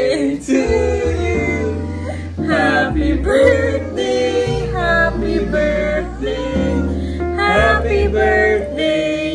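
A song with singing over an instrumental backing and a bass line that changes note every second or two.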